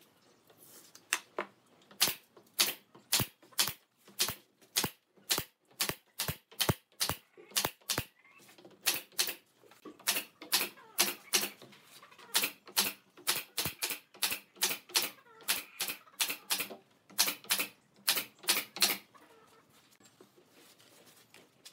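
Nail gun firing nails into pallet-wood slats: a long, quick run of sharp shots, about two to three a second, stopping near the end.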